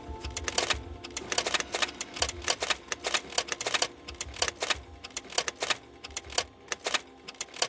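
Rapid, irregular clicking, several clicks a second, each with a dull low thump, over soft background music that fades out in the first couple of seconds. The clicks grow quieter and sparser toward the end.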